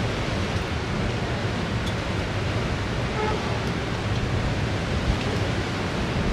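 Steady rushing noise of wind and sea, as heard on a moving ship, with a low machinery hum underneath.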